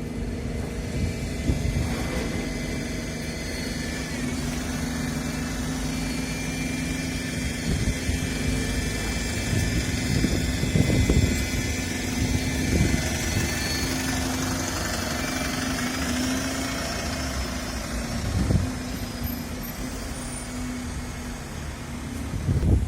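London bus engine running at a standstill with a steady hum and high whines, one whine rising about two-thirds of the way through. Wind buffets the microphone in low gusts.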